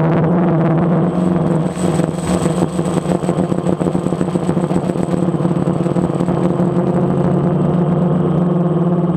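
DJI Phantom quadcopter's motors and propellers humming steadily, heard from the GoPro mounted on it. The hum turns rougher and fluttering from about one to five seconds in.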